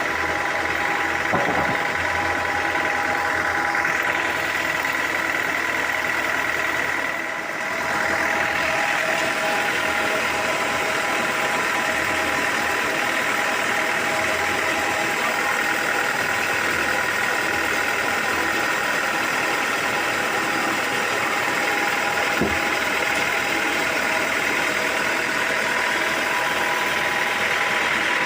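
Sawmill machinery running steadily: an engine-driven drone with a constant whine over it, dipping briefly about seven seconds in.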